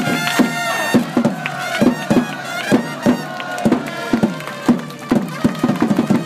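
Baseball cheering-section trumpet playing a cheer-song melody in held notes, over a crowd of fans clapping in a steady beat about twice a second.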